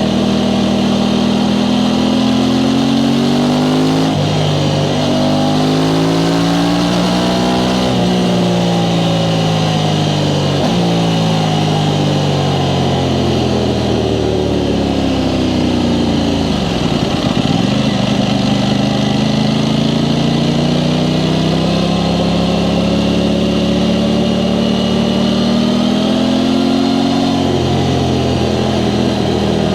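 Aprilia Tuono 660 Factory's parallel-twin engine through its stock exhaust, heard while riding: the revs rise under throttle and drop back again and again. About halfway through they fall low and then climb steadily again.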